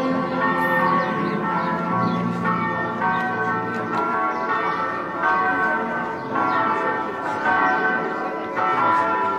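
Church bells ringing for a funeral: several bells struck over and over, roughly a stroke a second, each ringing on into the next.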